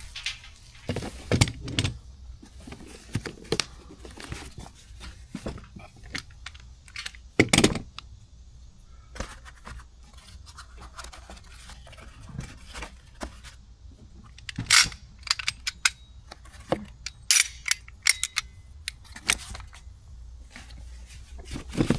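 Work noises of tools and metal parts being handled: scattered clicks, knocks and scrapes, with sharper knocks about seven seconds in and again near fifteen seconds.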